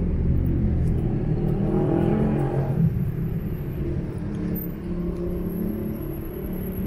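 Road traffic: cars driving past on the street. One engine speeds up and grows louder in the first three seconds, then the traffic noise eases a little.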